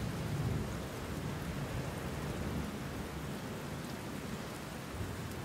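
Steady rain falling, with a low rumble in the first second or so.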